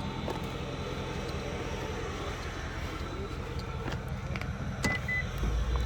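Steady low rumble of a car heard from inside the cabin while driving, with two short high beeps about five seconds in.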